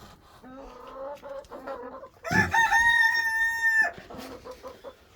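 Chickens clucking softly, then a rooster crowing once: a single loud, steady call of about a second and a half that cuts off sharply.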